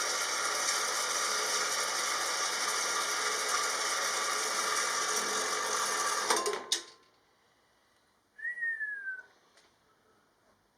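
Steady hissing workshop tool noise that cuts off abruptly about six and a half seconds in, followed after a pause by a short falling squeak.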